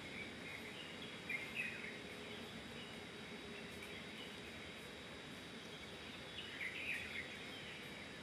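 Steady outdoor background hiss with small birds chirping in short bursts, once about a second in and again near the end.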